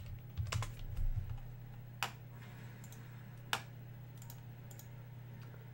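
A few separate computer-keyboard key presses and clicks, spaced out with pauses between them, over a steady low hum.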